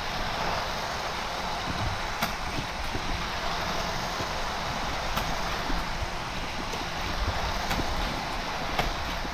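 Battery-powered Hot Wheels track boosters whirring steadily, with a few sharp clicks scattered through.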